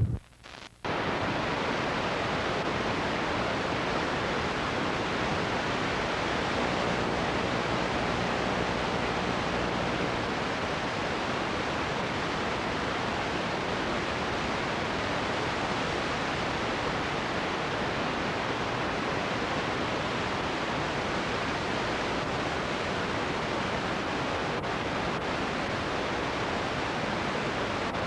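Steady, even hiss of static noise that sets in abruptly after a brief dropout in the first second and holds unchanged, with no engines or voices.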